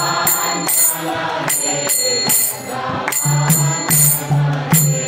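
Devotional kirtan music: small hand cymbals (karatals) struck in repeating groups of three, over a steady low drone and singing voices.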